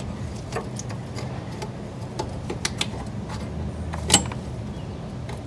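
Rear drum brake shoe adjuster star wheel being turned through the backing-plate slot with an adjuster tool, giving a scatter of irregular small clicks, one louder click about four seconds in, as the shoes are tightened towards the new drum.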